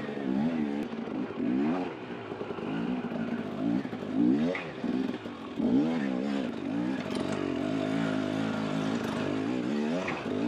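Husqvarna TE300 two-stroke dirt bike engine revving up and down as the throttle is worked over rough trail, its pitch rising and falling every second or so, then holding steadier near the end.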